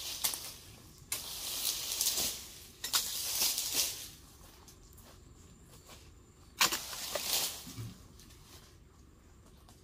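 Long-poled dodos chisel chopping into the bases of oil palm fronds: four sharp chops, each followed by about a second of dry rustling of the palm leaves, the last near two-thirds of the way in.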